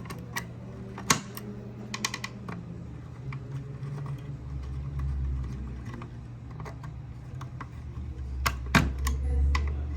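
Scattered small clicks and taps of hand wiring work on a timer relay board, such as wires and a screwdriver on plastic relay bases and terminal screws, with a low rumble that swells twice.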